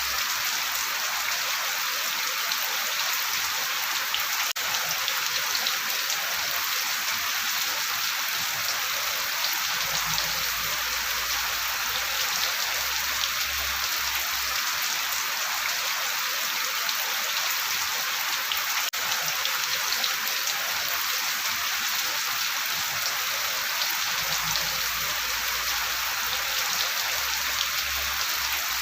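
Steady rain falling, an even, dense hiss of drops.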